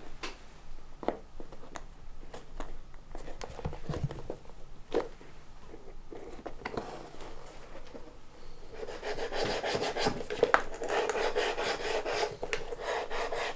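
Hand-stitching a leather pouch: thread pulled through the stitching holes, with scattered small clicks and short scrapes. About nine seconds in, this gives way to fast, even rubbing strokes on the leather, three or four a second.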